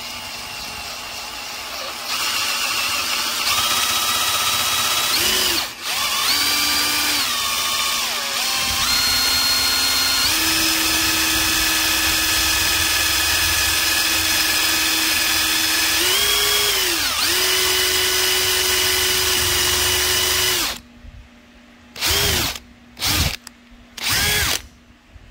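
Electric drill with a 1/8 inch bit boring out the centre of a rivet: the motor whines steadily, its pitch stepping up and down as the trigger is eased, with a brief stop about six seconds in. Near the end the drill gives several short blips.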